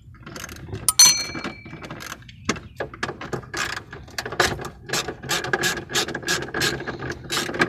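Hand ratchet wrench clicking in quick, even strokes as fasteners are worked loose while a car dashboard is taken apart. About a second in there is a single sharp metal clink with a short ring.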